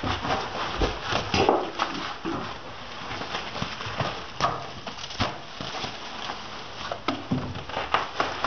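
Irregular knocks and clunks on wood, a dozen or so spread unevenly over several seconds, from work on an old mobile home's rotten subfloor boards.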